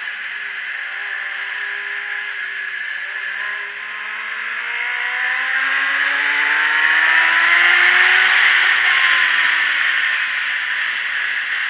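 Onboard sound of a sport motorcycle at track speed: heavy wind rush on the microphone over the engine, whose pitch climbs steadily for about four seconds as the bike accelerates out of a corner, getting louder, then eases back a little near the end.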